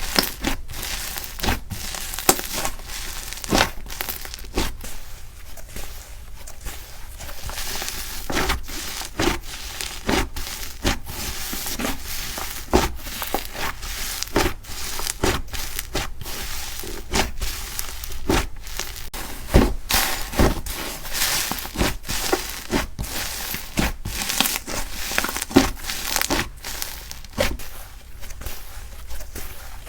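Slime being squeezed and pressed by hand, with many irregular sharp crackles and pops over a soft squelching hiss.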